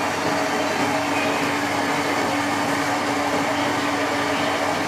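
Steady kitchen background noise: an even rushing hiss with a constant low hum beneath it.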